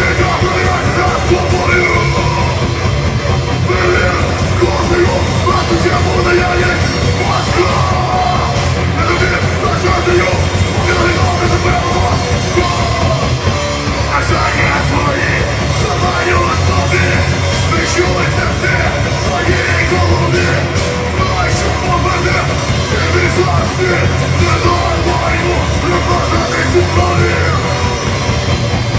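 Live grindcore band playing: distorted electric guitar, bass and a full drum kit, with a vocalist yelling into the microphone over it.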